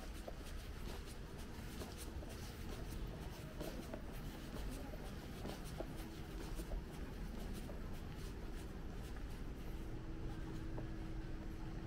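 Scratchy rubbing and scattered small clicks of a handheld camera being carried on foot, over a low steady street hum.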